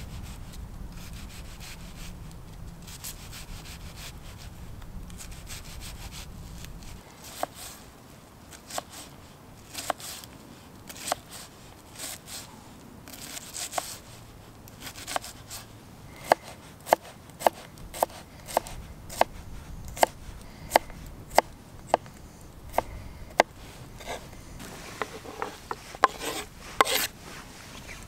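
Knife chopping an onion on a wooden board: soft cutting and rubbing sounds, then, from a little past halfway, a steady run of sharp taps of the blade on the board, about one and a half a second.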